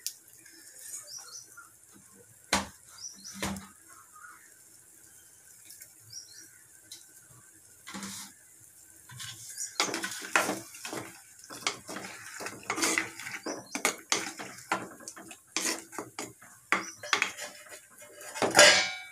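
A spoon clinking and scraping against a clay cooking pot as the salted mango mixture is stirred: a few separate knocks at first, then a busy run of clinks from about ten seconds in.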